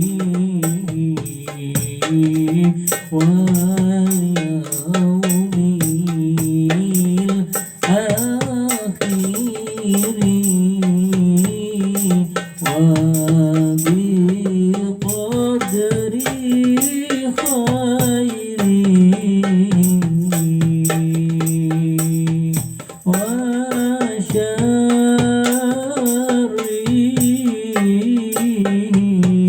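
Islamic qasidah (sholawat) singing: a solo voice sings long, ornamented, held lines over steady frame-drum and jingle percussion.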